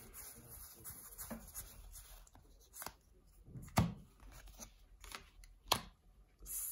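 Pokémon trading cards handled by hand: a faint rustle of cards sliding against each other as they are sorted, then a few sharp card taps and flicks as cards are set down on the table, the loudest about four seconds in.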